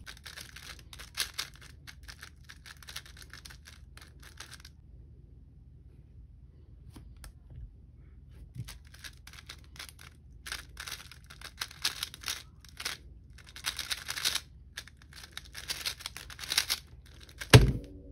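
X-Man Tornado V3 M magnetic 3x3 speedcube being turned fast by hand: dense runs of rapid plastic clicking and clacking from the layers, in two stretches with a pause between. Near the end comes a single loud thump as the solved cube is put down and the stackmat timer is stopped.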